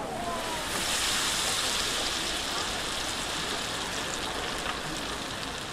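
Hot deep-fryer oil sizzling and crackling as a battered, skewered spiral-cut potato fries; the sizzle swells about a second in and then holds steady.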